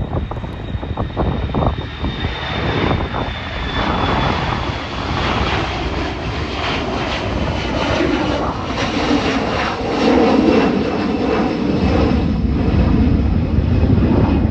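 Boeing 737 jet engines running, a high whine that sinks slightly in pitch over a low rumble that grows louder in the second half. Wind buffets the microphone in the first few seconds.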